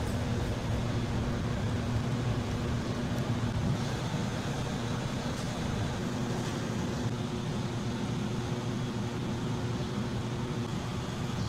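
Steady low mechanical hum with an even hiss, like a ventilation fan running, with a few faint light ticks.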